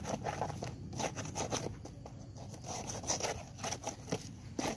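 Irregular scraping and rubbing strokes, two or three a second: packed grass and dirt being scraped by hand off a brush cutter's cutting head and guard.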